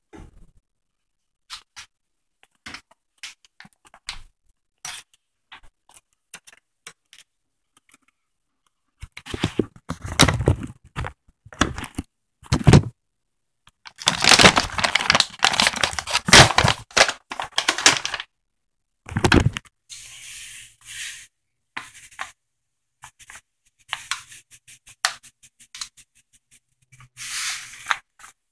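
Kitchen handling noise: scattered light clicks and knocks, then several longer stretches of scraping and rustling, loudest in the middle.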